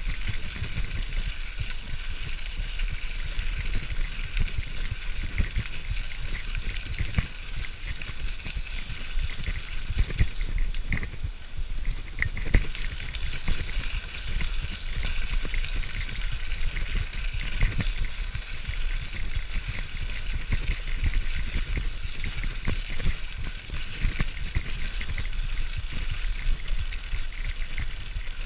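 Bicycle rolling fast over a dirt and gravel trail, heard through a body-mounted GoPro's housing: a constant low rumble of tyres and wind buffeting, with the bike rattling and a couple of sharper knocks from bumps about halfway through.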